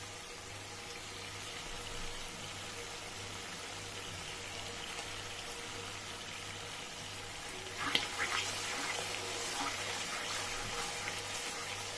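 Onions and blended pepper sizzling steadily in oil in a frying pan, with a low steady hum under it. From about eight seconds in a wooden spoon stirs and scrapes through the sauce.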